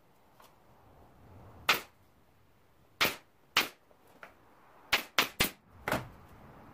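Pneumatic nail gun firing seven sharp shots, driving nails into the wooden muntins of a window sash, the last four in quick succession.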